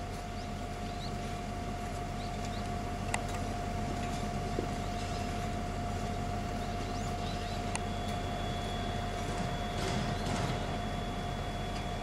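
An engine running steadily, with a few light clicks and knocks over it.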